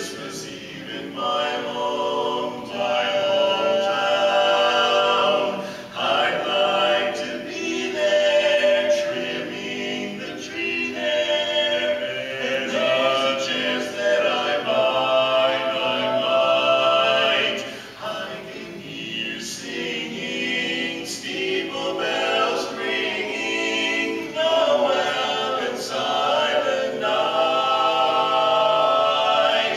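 Men's voices singing a cappella in barbershop four-part harmony. The chords are held through long phrases, with brief breaks between them.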